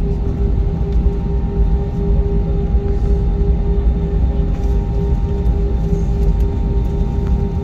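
Cabin noise of an Airbus A320-232 taxiing at idle thrust on its IAE V2500 engines: a steady low rumble and hum with a constant mid-pitched drone.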